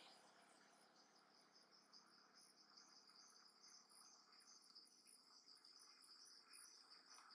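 Faint insect chirping: a high, pulsing trill repeating about three times a second, over quiet forest background.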